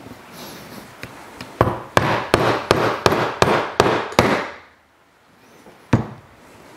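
A mallet striking a leather hole punch, driving it through three layers of latigo leather on a plastic cutting board: eight quick blows about three a second, then a single blow about a second and a half later.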